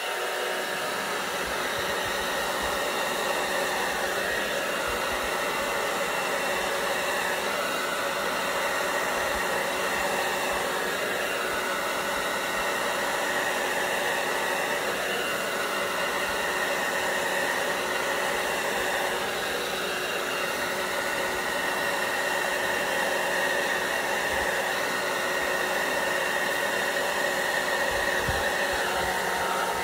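Hair dryer running steadily on its low fan and cool setting, a constant whoosh of air.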